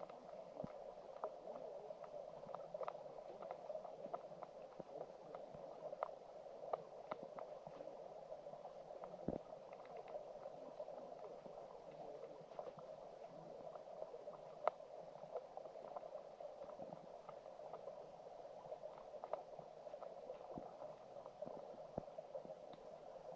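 Flowing stream water heard underwater: a steady muffled rush with many small scattered clicks and ticks.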